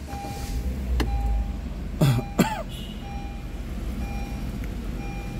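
Honda HR-V started with its push button: the engine cranks and catches with a brief low rumble about half a second in, then settles to idle. A dashboard warning chime beeps about once a second, and someone clears their throat twice around two seconds in.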